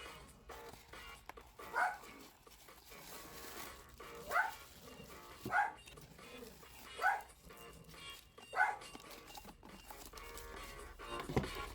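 A dog barking five times, short sharp barks a second or two apart.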